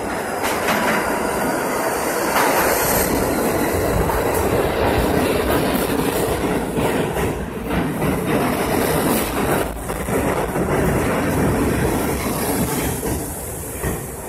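New York City subway train of R68A cars entering the station and running past along the platform, steel wheels clacking over the rail joints. The noise swells as the cars come alongside and eases a little near the end.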